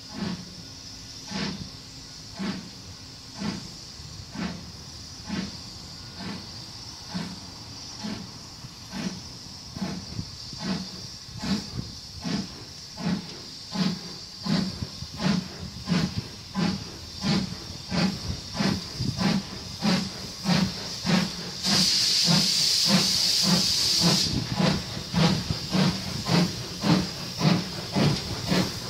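BR Standard Class 2MT steam locomotive No 78022, a two-cylinder 2-6-0, chuffing as it gets under way toward the listener. Its exhaust beats quicken from about one to about two a second and grow louder. About three quarters of the way through comes a loud hiss of steam lasting about two seconds.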